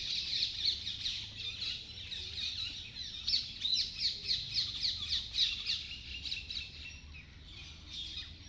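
A chorus of birds chirping: many rapid, overlapping short chirps that thin out and grow quieter near the end.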